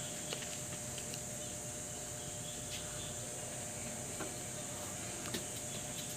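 A few faint clicks and small knocks from hands working a motorcycle tire onto a spoked rim, over a steady high-pitched drone in the background.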